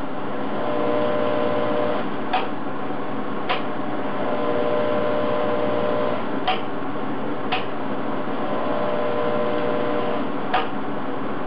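TIG welding arc on stainless steel pipe: a steady hiss and hum, with a faint tone coming and going three times and about five sharp ticks.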